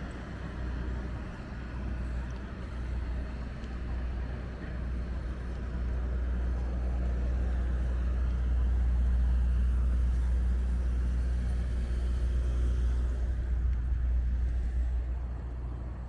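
Low, steady rumble of wind on the microphone of a moving bicycle, with road traffic beneath it; it swells to its loudest about halfway through and eases near the end.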